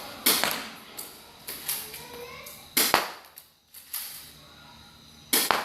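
Spring-action airsoft pistol firing three sharp shots, about two and a half seconds apart, with softer clicks between the shots.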